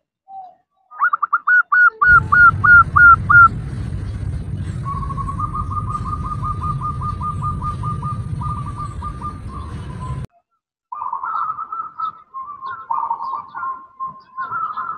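Zebra dove (perkutut) calling, in the female's calling pattern used to lure a male: a run of about nine quick rising notes, then a long fast trill of short notes over a low rumbling noise that cuts off suddenly, and after a brief gap a jumble of cooing calls.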